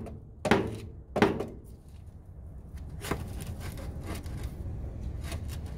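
Rubber mallet pounding a length of black ABS sewer pipe to drive it into old Orangeburg pipe: two heavy, ringing thuds in the first second and a half, then lighter knocks.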